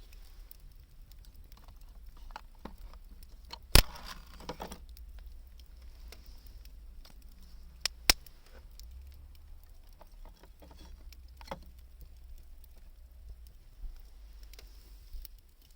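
Wood campfire crackling, with scattered small ticks and two sharp pops, one about four seconds in and one about eight seconds in.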